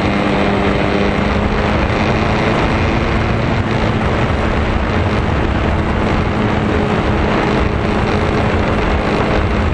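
Electric motor and propeller of an RC foam plane running at a steady pitch under heavy wind rush on the microphone.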